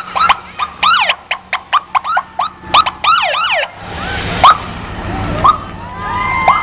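Police motorcycle siren blipping in rapid short rising-and-falling whoops, several a second. It stops a little before four seconds in, and a rush of noise follows as a motorcycle passes close.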